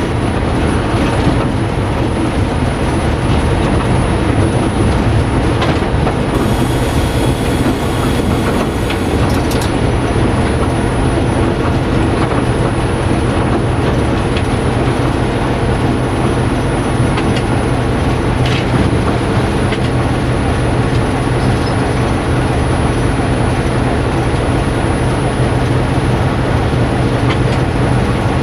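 Sulzer 12-cylinder diesel engine of a 060-DA (LDE2100) diesel-electric locomotive running steadily under way, heard from the cab, with the wheels rolling over the rails. About six seconds in, a high squeal rises over it for about three seconds.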